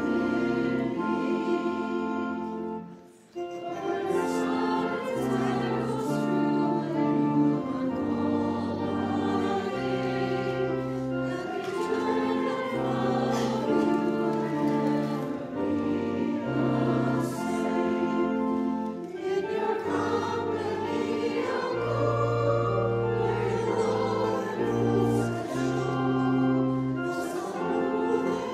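A church hymn with singing over sustained chords that change about once a second, with a brief break about three seconds in.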